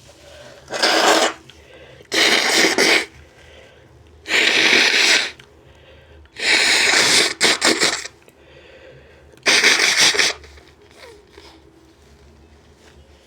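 A man forcefully blasting air out through his nose five times in a row, each blast about a second long. The fourth is the longest and ends in a few short spurts.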